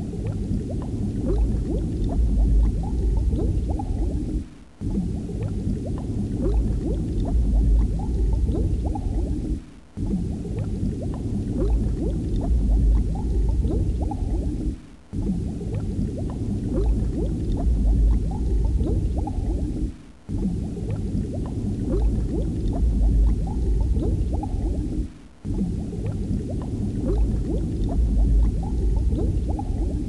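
Bubbling, gurgling water with many small pops, mostly low in pitch. It comes as a loop that repeats about every five seconds, with a brief drop-out between repeats.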